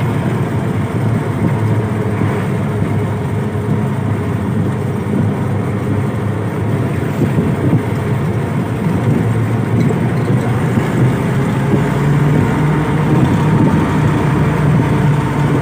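Jeep Willys engine running steadily as the Jeep is driven, with a constant low hum.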